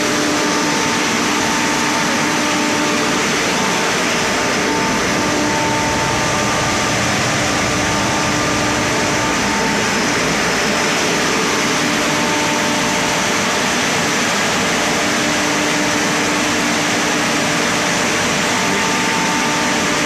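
Ice plant machinery running: a loud, steady mechanical drone and hiss with a few steady hum tones, one of them fading in and out.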